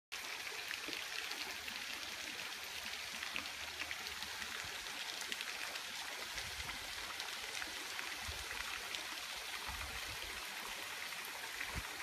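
Running water, trickling steadily with a fine patter of small splashes.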